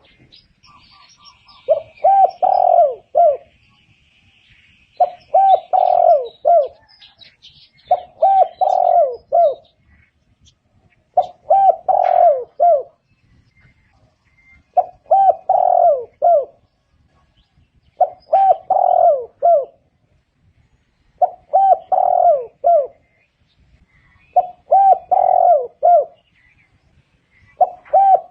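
Spotted dove cooing: a short phrase of about three coos, repeated steadily about every three seconds, nine times over.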